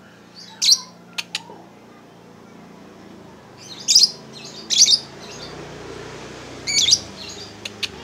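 Lovebird giving short, shrill chirps: four loud calls, about a second in, around four and five seconds, and near seven seconds, with a few fainter sharp clicks in between.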